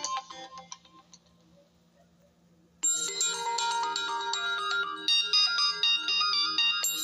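Oppo A7 ringtones: one ringtone melody fades out in the first second, followed by a short near-silent gap. A new ringtone melody of bright, stepped notes starts abruptly about three seconds in.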